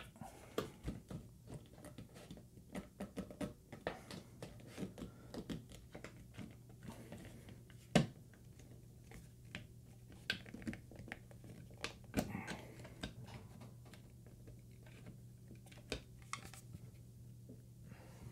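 Irregular light clicks, taps and scrapes of the plastic Alta Labs AP6 Pro access point against its ceiling mounting bracket as it is pressed, slid and twisted without latching into place. The sharpest knock comes about eight seconds in.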